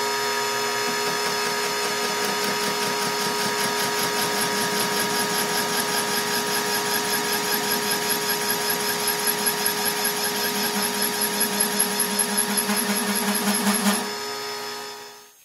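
Portable line boring machine turning its boring bar, a steady mechanical whine with the cutter step-facing a welded-up bore face. From about two-thirds of the way in, a rhythmic pulsing several times a second grows louder. Near the end the machine is switched off and runs down quickly.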